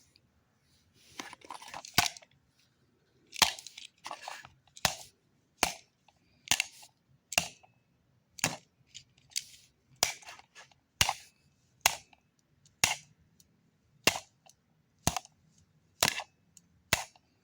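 A plastic alarm clock being struck over and over, each blow a short sharp crack, about one a second.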